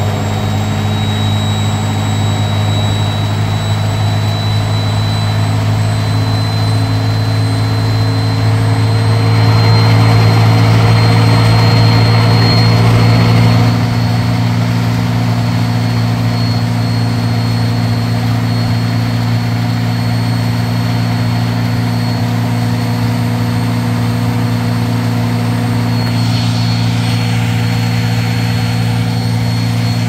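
Whirlpool front-loading washing machine's drum spinning at high speed on a spin cycle: a steady deep hum with a high motor whine that slowly creeps up in pitch. It grows louder with a rushing noise from about nine seconds in, settling back about five seconds later.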